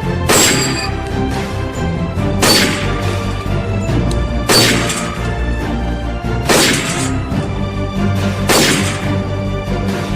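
Intro theme music with steady sustained tones, punctuated by a loud crashing hit about every two seconds, five in all.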